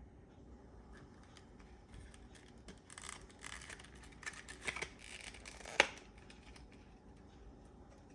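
Small clicks and scraping rustles of hands working on a laptop's casing, with one sharp click a little before six seconds in.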